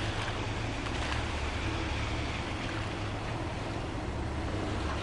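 Subaru Forester e-Boxer SUV wading slowly through a muddy puddle: water splashing and sloshing around the tyres over a steady low hum from the vehicle.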